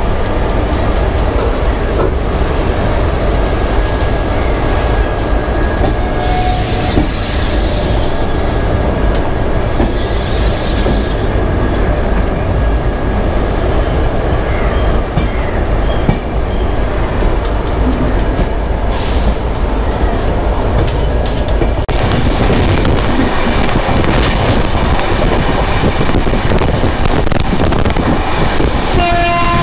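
Passenger train running along the track, heard from inside the coach: a steady rumble of wheels on rails. Two short hisses come early on, and a horn starts sounding right at the end.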